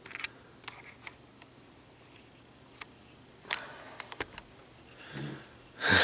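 Scattered light clicks and taps of handling, one sharper tap about three and a half seconds in, and a brief louder rustle just before the end.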